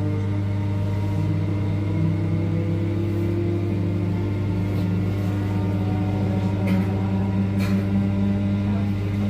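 Class 319 electric multiple unit's traction motors accelerating, heard from inside the carriage: a loud motor whine that slowly rises in pitch as the train picks up speed, over a steady low hum. Two short clicks come near the end.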